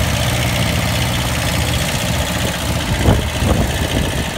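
Engines of two small mini tractors (13 and 9 horsepower) running steadily with a low, even rumble. A brief sharp sound rises over it about three seconds in.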